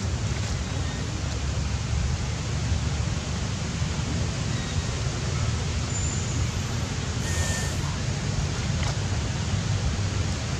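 Steady outdoor background noise with a low wind rumble on the microphone, and a brief faint call about seven seconds in.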